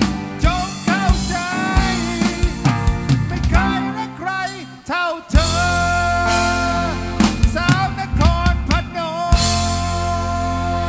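Live band music: a male singer sings a slow melody with wavering held notes over a keyboard. The sound thins out briefly near the middle, then the band comes back in with full, sustained chords.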